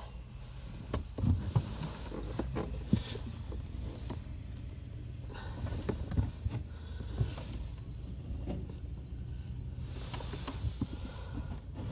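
Steady low rumble of an idling vehicle, with scattered faint clicks and knocks.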